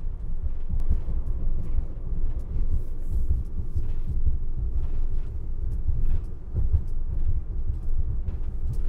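Road and tyre noise inside the cab of a Winnebago eRV2 all-electric RV, built on a Ford E-Transit, while it drives along: an uneven low rumble with faint scattered knocks. With no engine running, the road noise is the main sound in the cabin.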